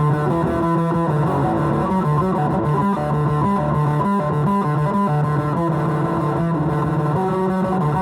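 Electric guitar played through a fuzz pedal based on the Devi Ever Hyperion, giving a thick distorted tone. A held low note sits under a line of higher notes that keep changing.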